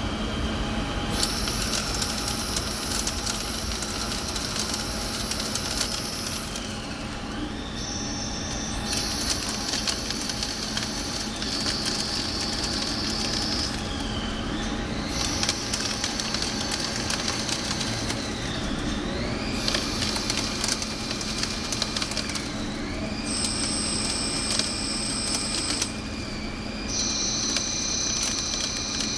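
Haas DS30SSY CNC lathe turning heat-treated 4340 steel bar stock under flood coolant: a steady machine and coolant-spray noise with fine ticking. Over it run high whines that change pitch every few seconds, with brief dips between them.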